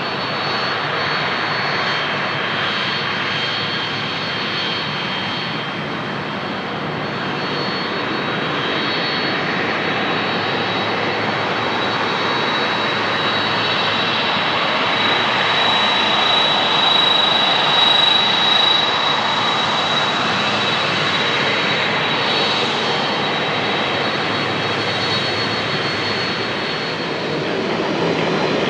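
Jet airliner on final approach passing close by, a steady engine roar with a high fan whine that swells to its loudest a little past the middle and then eases off.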